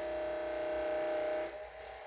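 Electric massage device buzzing at a steady pitch, cutting off about one and a half seconds in.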